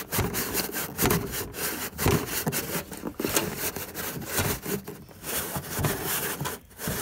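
Irregular rubbing and scraping as the underhood work light of an old GMC/Chevy truck is worked back into its plastic housing by hand, a stiff fit because the unit is old.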